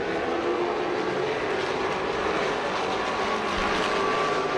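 Pack of late model stock cars with V8 engines running at racing speed around a high-banked short oval, their engines blending into a steady drone.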